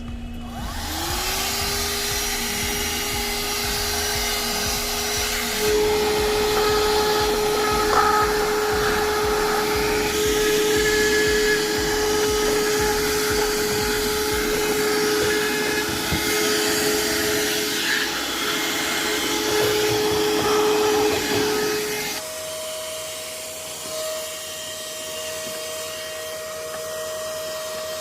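Yearwin car vacuum cleaner's motor starting up, its whine rising in pitch about a second in, then running steadily. About 22 seconds in it changes to a higher, quieter whine.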